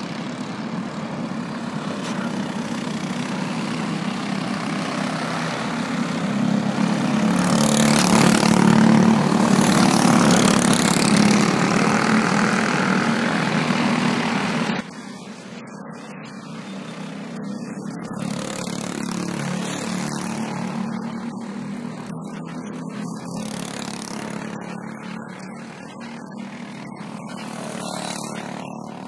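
Briggs & Stratton 206 racing karts passing at speed, their single-cylinder four-stroke engines buzzing as a pack. The sound is loudest about eight to twelve seconds in and drops off suddenly near fifteen seconds. Single karts then pass more faintly a few more times.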